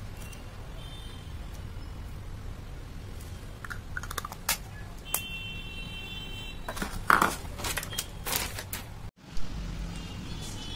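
Hard plastic clicks and knocks of a canister pencil sharpener being handled, its orange blade top fitted to the red shavings container, most of them clustered about seven to eight seconds in, over a steady low hum.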